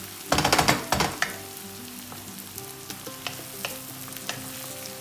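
Sliced onions and pepper paste sizzling in a wok as a wooden spatula stirs them. There is a loud burst of stirring in the first second, then steady sizzling with scattered light spatula taps.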